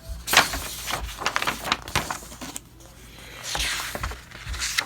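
Paper and packaging being handled: rustling with a few sharp taps and clicks, a loud rustle just after the start and a longer one near the end.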